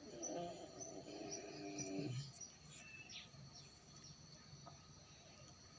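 A voice holding one long drawn-out note of a quiet Quranic recitation for about two seconds, then breaking off. Faint high chirping runs in the background.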